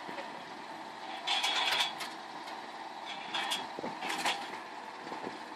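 Old tractor running steadily while its mounted ditch-cleaning boom and bucket work. Short bursts of metal clatter come from the arm, the loudest about a second and a half in, with two smaller ones later.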